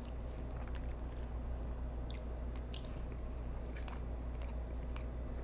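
A person chewing a mouthful of cooked striped sea robin, with a few faint mouth clicks scattered through it, over a steady low hum.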